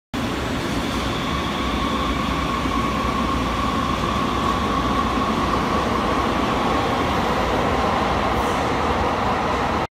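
Light-rail train moving along an underground station platform: a steady rumble of wheels on rails with a high whine running over it. The sound cuts off abruptly near the end.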